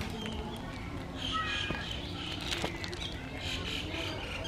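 Outdoor ambience of scattered short, high animal calls and chirps over a steady background hum.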